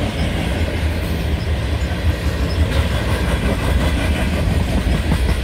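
Freight train cars (covered hoppers and boxcars) rolling steadily past, their steel wheels running on the rails with a continuous low rumble.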